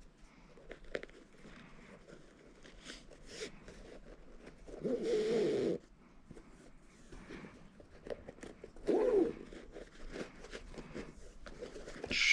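Shoelaces being pulled through the eyelets of a basketball sneaker: scattered soft ticks and rustles, with a longer zipping pull about five seconds in and a shorter one near nine seconds.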